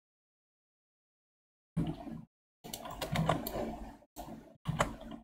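Computer mouse clicks and keyboard taps in several short bursts, each cut off sharply, with dead silence between them.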